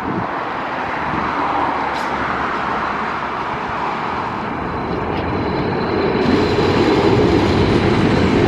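ED4M electric multiple unit pulling away from a platform and passing close by. The rumble of its wheels and running gear grows louder as it comes alongside, with a faint steady whine in the second half and a few light clicks.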